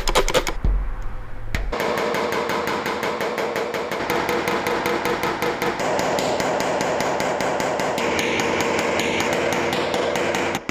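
Paintless dent repair tool tapping down high spots on a steel truck bedside: rapid, even metal taps, several a second, starting about two seconds in and running on without a break.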